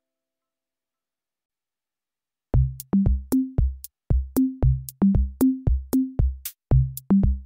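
Silence, then about two and a half seconds in, electronic background music starts: a quick drum-machine beat with deep bass notes and ticking hi-hats.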